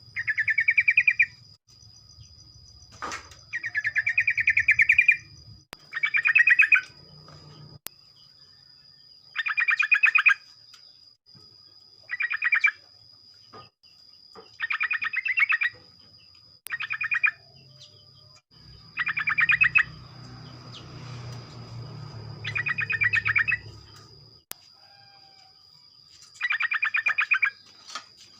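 Yellow-vented bulbul singing: a dozen or so short, rapid bubbling phrases, each about a second or two long, repeated every couple of seconds. A steady faint high whine runs underneath.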